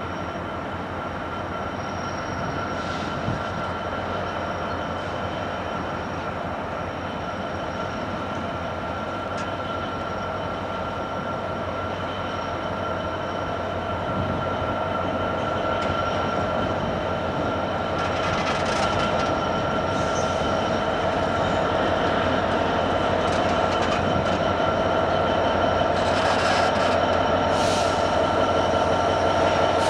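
Class 66 diesel-electric locomotive's two-stroke V12 diesel engine running as the locomotive creeps closer, with a steady high whine over the engine note, growing slowly louder. A few short high-pitched sounds come in the second half.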